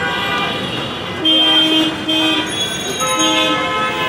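Vehicle horns honking in busy street traffic: a longer blast a little over a second in, then shorter toots, over a steady traffic din.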